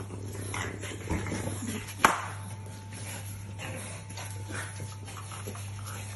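French bulldog puppies playing on a tile floor: soft scuffles and small dog sounds, with one sharp tap about two seconds in, over a steady low hum.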